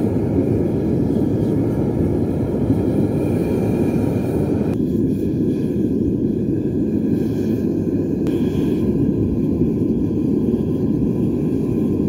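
Vevor 12 kg propane melting furnace firing, its burner giving a loud, steady, deep rushing noise.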